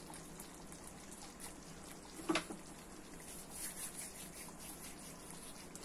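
Faint bubbling of a pan of curry gravy simmering, with a soft crackle of dried fenugreek leaves (kasuri methi) crushed between the palms over it. One brief sharper sound comes a little past two seconds in.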